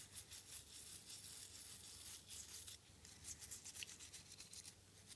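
Faint, rapid scratching of toothbrush bristles scrubbed back and forth over an iPhone 5 logic board wet with isopropyl alcohol, about five strokes a second, with a short pause about three seconds in. It is the alcohol wash that clears water residue from the board to stop corrosion.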